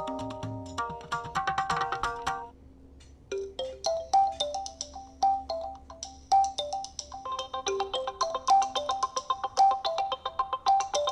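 Realme C21Y stock ringtones. One melody of held, bell-like notes ends about two and a half seconds in. After a brief pause a new ringtone starts: a quick percussive tune of short repeated pitched notes with clicks, which gets fuller partway through.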